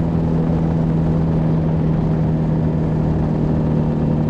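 MG TD's 1.3-litre XPAG four-cylinder engine pulling at a steady pitch in fifth gear while climbing a hill, with an even road and wind hiss from the open roadster.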